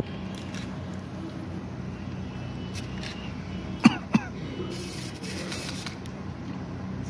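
A steady low mechanical hum, with two sharp knocks in quick succession about four seconds in and a brief hiss just after.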